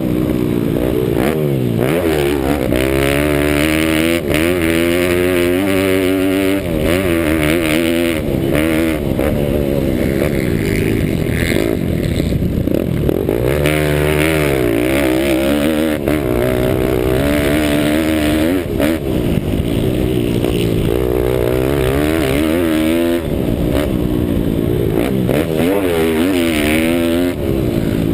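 Pit bike's single-cylinder engine at race pace, its pitch climbing and dropping over and over as the throttle is opened and shut through corners and straights, heard from a helmet-mounted camera.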